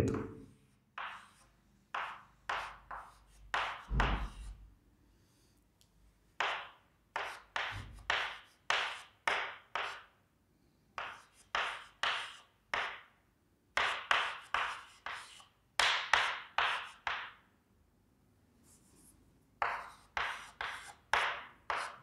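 Chalk tapping and scraping on a chalkboard as tick marks and numbers are written on a graph's axes. It comes as a run of short, sharp strokes in clusters, with two brief pauses.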